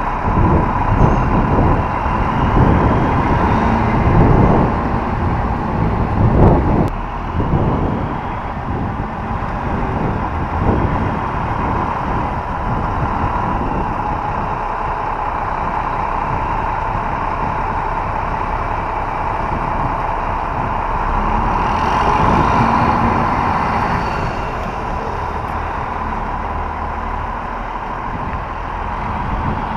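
Vehicle engine running with road noise as the rig moving the RV drives slowly. It is louder and more uneven for the first several seconds, then steady.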